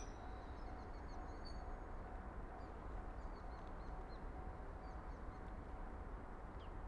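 Faint, scattered bird chirps over a steady low background noise.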